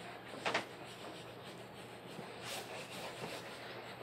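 Crayon rubbed back and forth on paper, faint scratchy strokes as a darker shade is blended into the colouring, with a brief louder stroke about half a second in.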